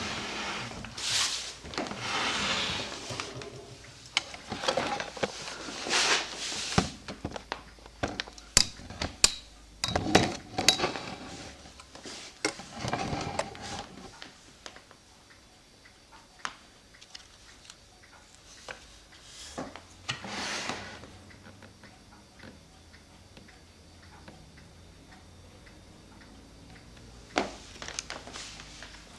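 Small hard objects handled on a workbench: irregular light clicks and knocks with short rustles of paper, as a freshly papered cuckoo clock bellows is moved about. The handling is busiest in the first half and thins out after that.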